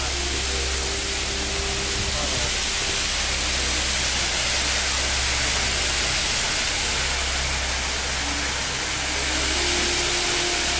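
A steady, even rushing hiss with a low rumble underneath, unchanging throughout.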